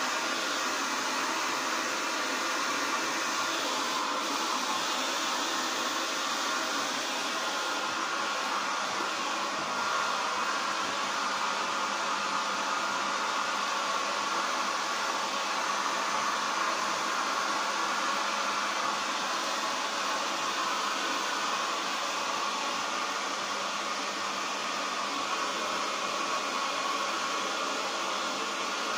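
Handheld electric hair dryer running steadily, blowing on a wet dog's coat: an even rush of air with a faint steady motor whine.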